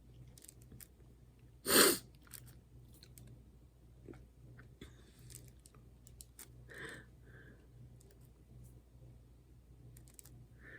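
Handling noises of craft supplies: scattered light clicks and taps, with one loud, short, sharp crunch about two seconds in.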